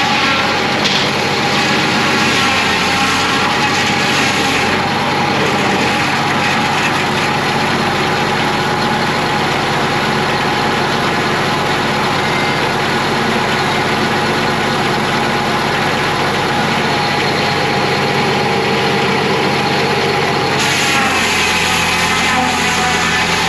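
Homemade bandsaw sawmill running with a loud, steady mechanical drone. The sound shifts about five seconds in and again near the end.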